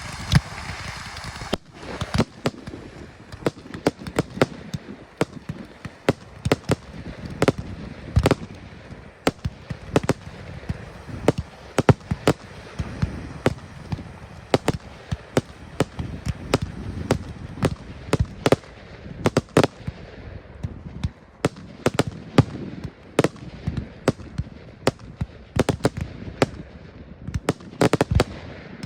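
Professional display fireworks going off in rapid succession, many sharp bangs a second. A steady hiss opens the first second and a half, then the bangs cut in.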